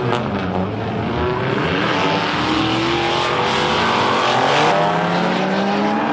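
Several drift cars running on the track at once, their engines revving up and dropping back at overlapping pitches over a steady rush of noise.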